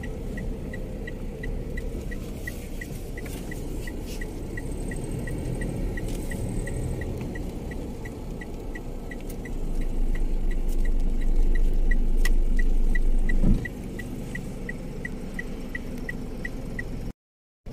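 Car interior while driving: steady engine and road rumble, with an even high tick nearly three times a second from the dashboard. The rumble grows louder about nine and a half seconds in and drops back at about thirteen and a half seconds, and the sound cuts out for half a second near the end.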